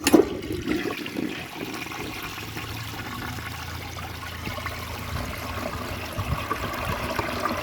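1967 Crane Canada toilet flushing. There is a sharp knock at the start, then a steady rush of water through the bowl.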